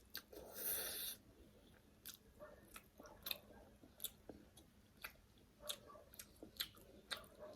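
Close-miked eating sounds of spicy noodles and egg: a short rushing sound about half a second in, then irregular wet mouth clicks and smacks of chewing.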